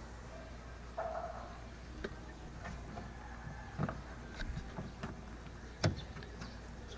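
A few scattered light clicks and taps of a screwdriver and screws being handled while the door panel's last screw is taken out, the sharpest click about a second before the end.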